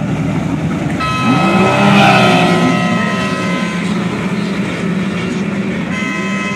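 Several racing personal watercraft launching together off the start line, their engines revving up sharply about a second in and then holding a steady high-pitched whine as they pull away.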